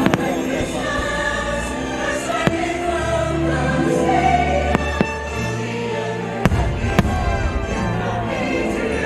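Fireworks show soundtrack with a choir singing, over which aerial firework shells go off as sharp bangs, the loudest near the start and about seven seconds in.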